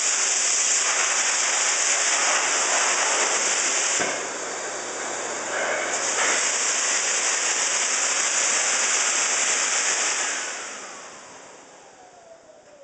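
Electric horse-grooming machine running, its air rushing through the hose with a loud, steady hiss that drops for about two seconds near the middle. About ten seconds in it is switched off and the motor winds down with a falling whine.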